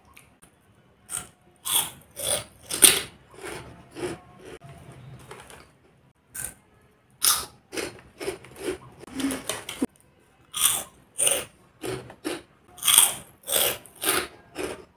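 Close-miked crunching and chewing of crispy pasta-shaped chilli tomato namkeen: a run of irregular sharp crunches with a short lull about six seconds in.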